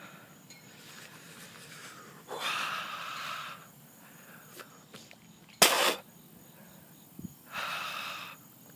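A man's hard, breathy exhales through an open mouth from the burn of a whole Trinidad Scorpion pepper: a long exhale about two and a half seconds in, one sharp, sudden blast of breath just before the six-second mark, and another exhale near the end.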